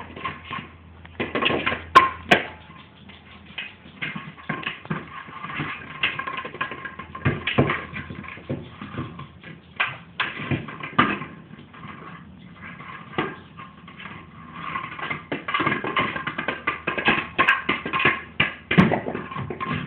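Battery-powered running egg dog toy rolling and bouncing across the floor, with irregular knocks and clatter throughout.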